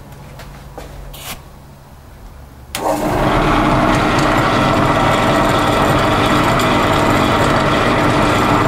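Sealy 12-speed pillar drill switched on about three seconds in and then running steadily under its single-phase motor.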